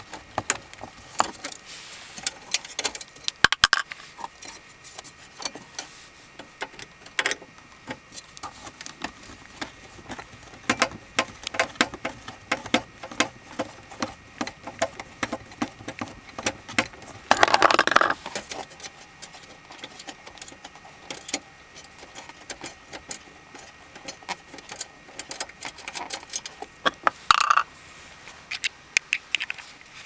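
Screwdriver working screws out of the metal bracket and plastic trim inside a 2001 Honda Civic's center dash, making scattered small clicks, ticks and light rattles. A louder scrape lasting about a second comes a little past halfway, and another cluster of clicks near the end.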